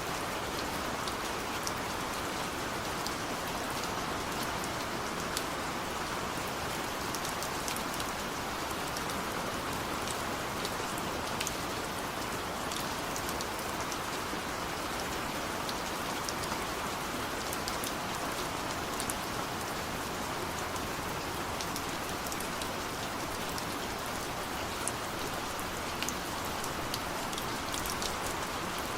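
Steady rain, an even hiss with scattered light drop ticks throughout.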